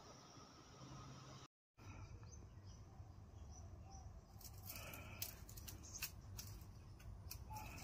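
Faint bird chirps in the background, then a run of light clicks and ticks as a bundle of thin brazing rods is handled.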